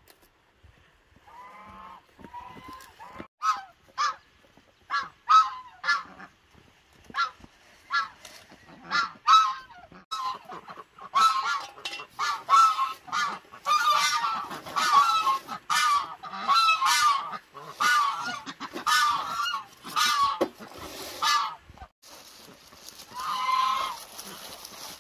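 Farm waterfowl calling: a run of short, repeated calls, a few at a time at first, then coming thick and fast and overlapping from several birds from about ten seconds in.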